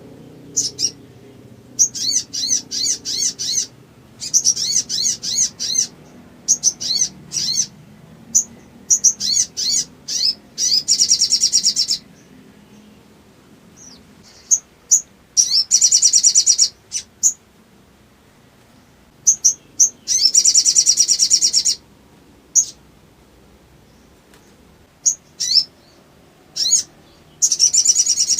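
Spiderhunter (sogok ontong) calling: bursts of rapid, high chattering trills alternate with single sharp chips and short pauses, again and again.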